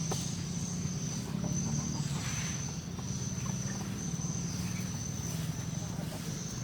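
An insect trilling in one steady high note that breaks off briefly a few times, over a low steady hum.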